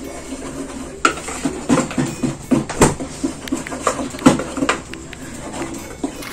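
Wire whisk stirring dry flour and cocoa powder in a plastic mixing bowl. The wires scrape and tap against the bowl in quick, irregular strokes, starting about a second in.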